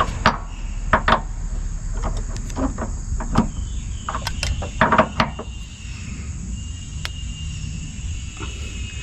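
Scattered metal clinks and knocks of a 21 mm socket, extension and ratchet being fitted onto a car's rear subframe bolt and worked to break it loose, heaviest around the middle.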